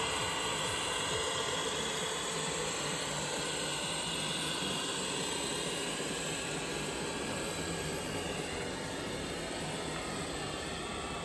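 Radio-controlled Mercedes-Benz Zetros 6x6 dump truck driving, a steady mechanical running noise with a faint whine.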